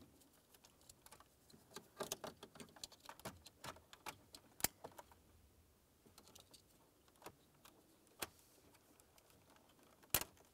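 Plastic wiring-harness connectors being handled and plugged in behind a truck dash, heard as faint rustling and scattered small clicks. A sharper click comes about ten seconds in.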